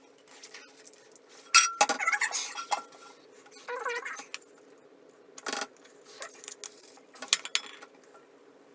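Metal tools and hardware clinking and clattering in irregular, separate clanks, the loudest about a second and a half in.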